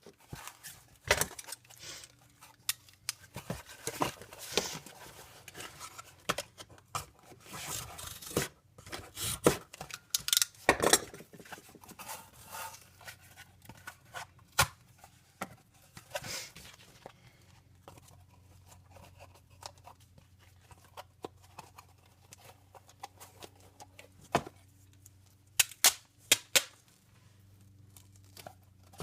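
Duct tape being pulled off the roll and torn, mixed with irregular handling knocks and rustles of tape and cardboard.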